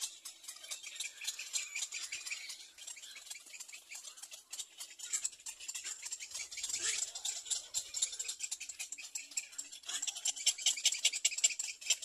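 Rapid, high-pitched pulsed chirring from animals, growing louder over the last couple of seconds.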